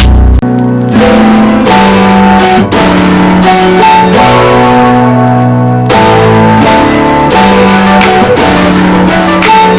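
Background music with guitar and bass.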